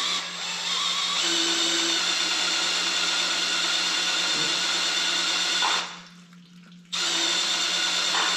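Electric drill spinning a Ford 352 FE engine's oil pump to push oil through the block's galleys and flush them before assembly. It runs steadily, stops about six seconds in for about a second, then starts again.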